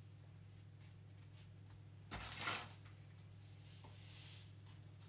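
Jammy Dodger biscuits and their plastic packet being handled, with one brief rustle about two seconds in, over a steady low hum.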